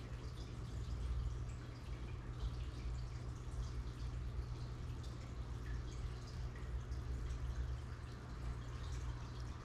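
Aquarium water bubbling and dripping: many small, irregular pops and trickles of air bubbles breaking the surface, over a steady low hum.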